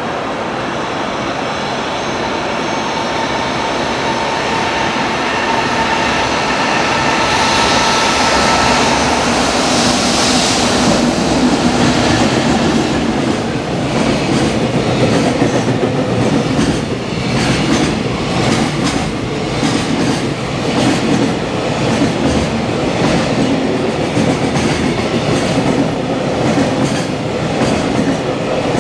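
Long container freight train running through a station at speed: a rising rumble with a steady whine as it approaches, then, as the wagons stream past, a fast rhythmic clatter of wheels over the rail joints.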